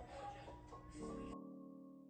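Lo-fi background music: soft electric piano chords, with a new chord struck about a second in and left to fade. A hiss of noise sits under the start and cuts off suddenly soon after the new chord.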